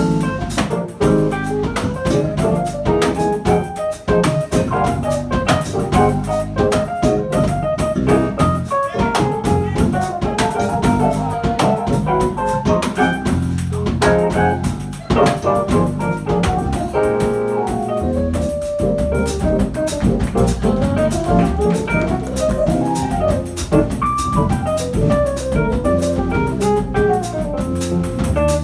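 Live jazz-Brazilian combo playing an instrumental passage: piano over bass and pandeiro and drums, with no vocals.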